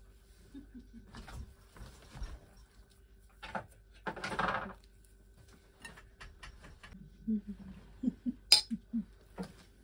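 A metal spoon clinking and scraping against a stainless-steel bowl and plates, among the soft rustles and knocks of pancakes being filled and rolled by hand. The sharpest and loudest clink comes near the end.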